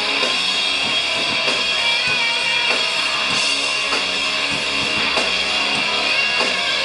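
Rock band playing an instrumental passage between sung lines: electric guitar over a steady drum-kit beat.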